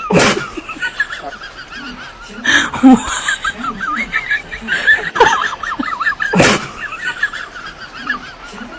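A baby monkey crying with quick, wavering high squeals, broken by a few loud sharp outbursts near the start, about two and a half seconds in and about six and a half seconds in.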